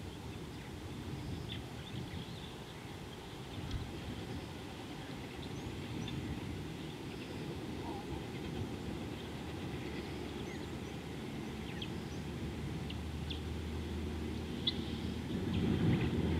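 Outdoor ambience: a low steady rumble with scattered faint bird chirps and calls. A low hum joins about two-thirds of the way in, and the rumble grows louder near the end.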